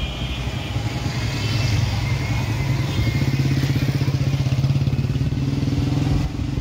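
A small motor vehicle's engine running steadily close by with an even throb, louder from about two seconds in and cutting off near the end.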